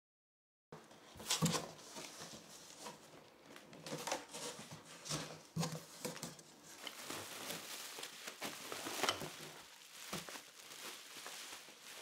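Cardboard box flaps and plastic wrapping rustling, crinkling and scraping as a box is unpacked by hand, with sharp crackles scattered through. It starts after a moment of silence.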